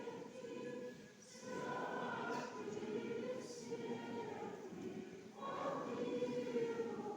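Orthodox church choir singing a slow memorial chant in long held notes, broken by two short pauses about a second in and just past five seconds.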